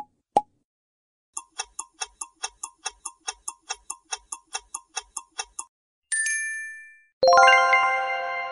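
Quiz sound effects: two short pops, then a clock ticking about four times a second for about four seconds as a countdown. A bell-like ding rings out and fades, and near the end a loud chime chord starts and slowly dies away.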